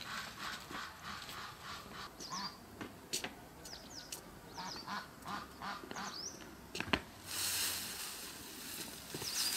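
Domestic ducks quacking in quick runs, with a few high chirps between them. About seven seconds in comes a sharp click, followed by a loud, steady rustling hiss of leafy bamboo branches being gathered up and dragged over stone paving.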